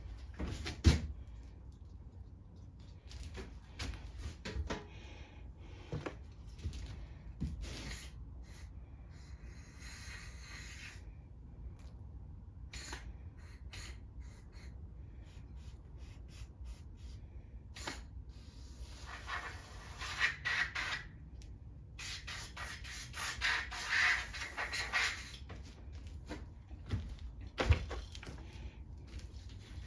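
Aerosol carb cleaner sprayed in hissing bursts onto the parts of a dirty, clogged small-engine carburetor: a short faint burst, then two longer bursts later on. Light clicks and knocks of small metal parts being handled come in between.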